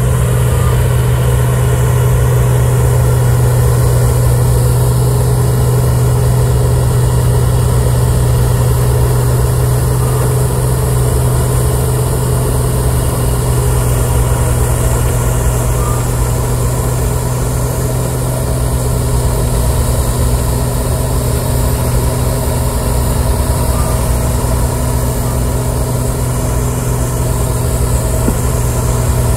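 CAT 938G wheel loader's diesel engine running steadily under load as its front-mounted two-stage snowblower cuts into a deep snowbank, a constant low drone with a steady high hiss over it.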